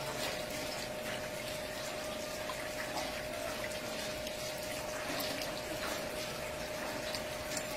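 Water from a hose splashing and running through a spinning bicycle-rim water wheel with drink cans as buckets, a steady wash of water with scattered light clicks. A steady hum sounds under it throughout.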